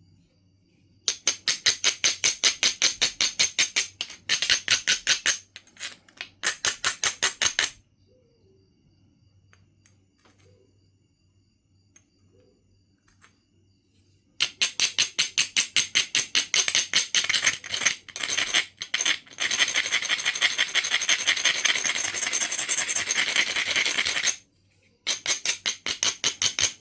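Abrading stone scraped rapidly back and forth along the edge of a Knife River flint piece, about seven strokes a second, in three runs with pauses between. This grinds the edge to prepare striking platforms.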